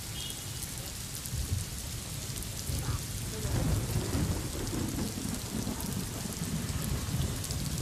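Heavy rain falling with a low, uneven rumble of thunder underneath, the rumble swelling a little about halfway through.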